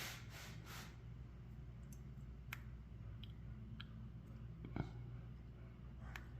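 Faint, scattered small clicks of tweezers and tiny lock pins being handled while a pin-tumbler lock cylinder is taken apart, with the loudest click a little under five seconds in, over a steady low hum.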